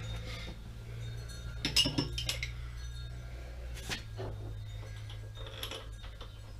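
Metal hand tools clinking and knocking together as they are handled, a few separate clinks with the loudest cluster about two seconds in, over a steady low hum.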